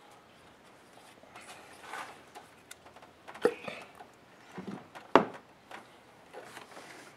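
Hands handling plastic ignition coils and their connectors on a Toyota Sienna engine: scattered light clicks and rustling, with two sharp knocks about three and a half and five seconds in.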